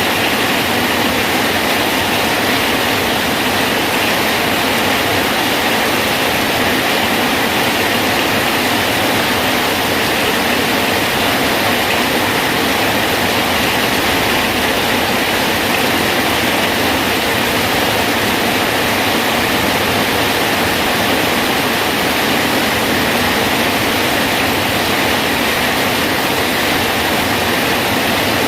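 Rain falling steadily on a bridge, an even hiss of water with no single drops or knocks standing out.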